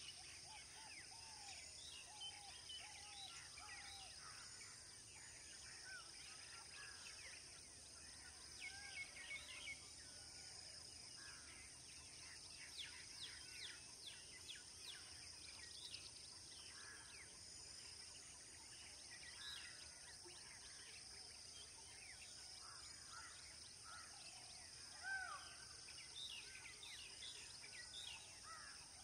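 Faint wild birds calling, many short chirps and whistled notes scattered throughout, over a steady high hiss.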